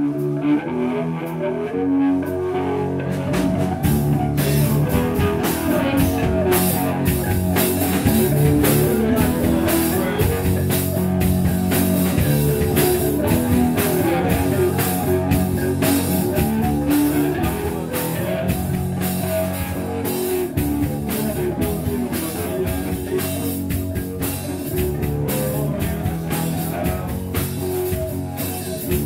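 Live rock band playing: electric guitars over a drum kit, the music coming in at the very start and continuing at full volume.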